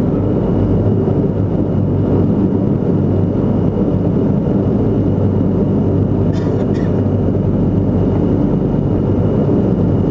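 Antonov An-22's four Kuznetsov NK-12 turboprops with contra-rotating propellers droning steadily on approach, heard inside the cockpit, with a strong low hum. Two short clicks about six and a half seconds in.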